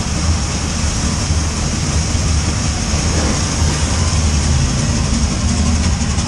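Steady rushing of a waterfall pouring down the rock wall right beside the raft, over a constant low rumble.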